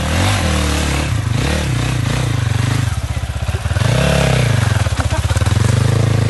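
Zongshen RX3 250cc single-cylinder motorcycle engine pulling over a slippery off-road track. Its pitch rises and falls with several short throttle changes, and the biggest rev-up and drop comes about four seconds in.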